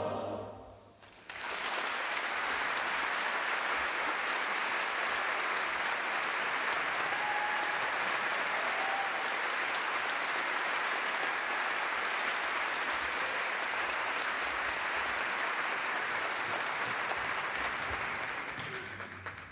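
Large audience applauding in a concert hall. The applause breaks out about a second in, right after the music stops, holds steady, then dies away near the end.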